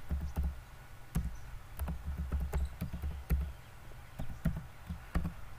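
Computer keyboard keys clicking at an irregular typing pace, over a low hum.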